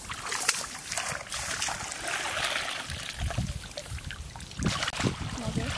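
Paddy water trickling and dribbling through a woven bamboo scoop basket as it is lifted and worked, with small scattered clicks and rustles.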